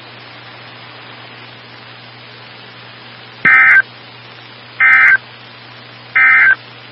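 Weather radio receiver hiss with a low hum, then three short, shrill data bursts about a second apart. These are the EAS/SAME end-of-message code that closes the NOAA Weather Radio weekly test.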